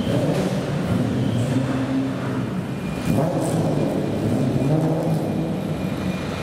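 Classic car engine running and being revved as the car pulls away, its pitch rising and falling a few times.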